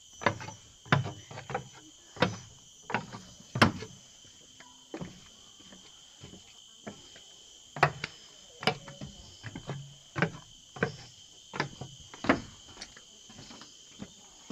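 A steady high-pitched drone of tropical forest insects, with footsteps thudding along at a walking pace, about one and a half steps a second.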